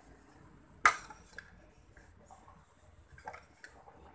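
A metal spoon clinks against a plate: one sharp clink about a second in, then a few lighter taps and scrapes.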